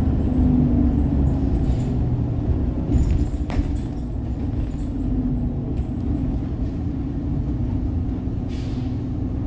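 2012-model village bus heard from inside the cabin while driving: a steady engine drone and road rumble. A sharp click comes about three and a half seconds in, and a short hiss near the end.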